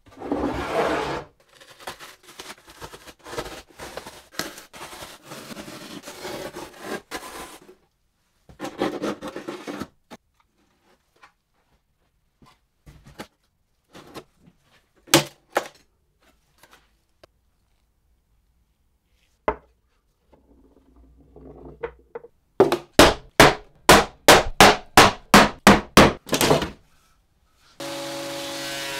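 Bouts of scraping and rubbing, a few lone clicks, then a quick run of about fourteen sharp knocks, roughly three a second. Near the end an electric jointer-planer's motor starts and runs steadily.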